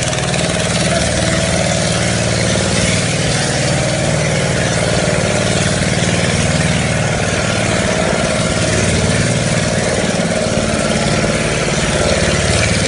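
A motorboat's engine running at a steady speed, a constant low hum over an even hiss.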